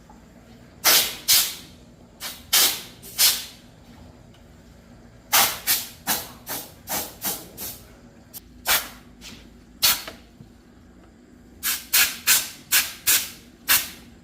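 About twenty short, sharp hisses of spray, each a fraction of a second, fired in quick clusters of two to seven with short pauses between.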